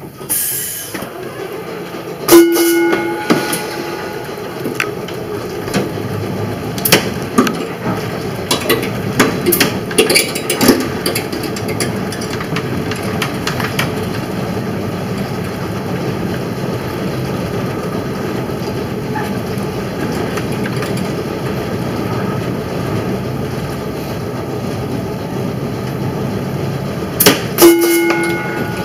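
Historic electric streetcar running along its track: a steady rumble with rattles and clicks from the wheels and car body. Its gong rings with a quick double strike a couple of seconds in and again near the end.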